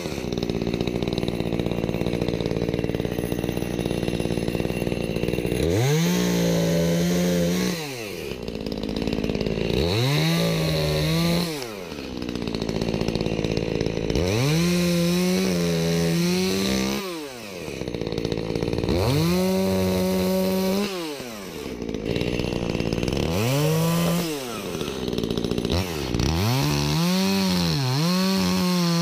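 Makita EA3201S two-stroke petrol chainsaw running and cutting wood, revved up to full throttle about six times for cuts, each time for a second or two, and dropping back toward idle in between.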